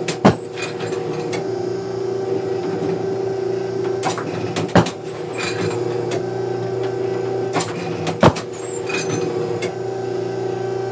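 Automatic clay trap machine running inside the trap house with a steady motor hum. Three sharp bangs come about four seconds apart, each shortly after a lighter click, as the machine cycles to throw clays during a round of trap.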